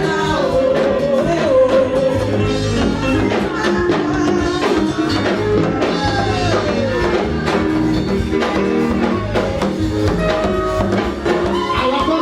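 Church worship music: singing over a band with held bass notes and a steady percussion beat.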